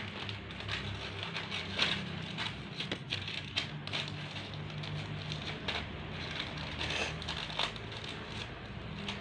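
Irregular crackling and crinkling, many small clicks close together, over a low steady hum.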